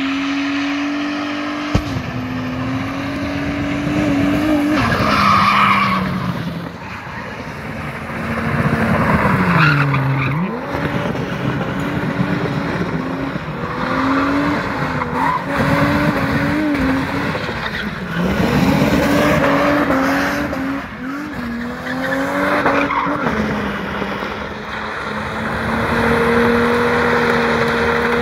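VY Commodore V6 ute doing a burnout: the engine is held at high revs while the rear tyres spin and squeal. The revs dip and climb back several times, most deeply about ten and eighteen seconds in. There is one sharp click about two seconds in.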